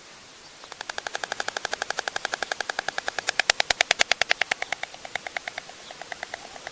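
White stork bill-clattering: a rapid, even train of clacks, about eight a second, starting under a second in and loudest near the middle, then breaking into shorter, fainter runs toward the end.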